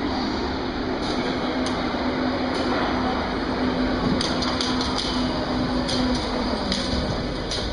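Berlin U-Bahn train pulling into an underground station and slowing: a steady whine under the running noise stops about six seconds in. Sharp clicks and clatter come from about four seconds in as it draws alongside the platform.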